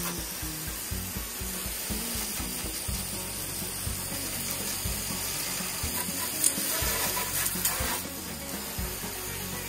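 Water spray hissing onto the wooden floor and rusty sheet steel of a truck bed, over background music with a steady beat.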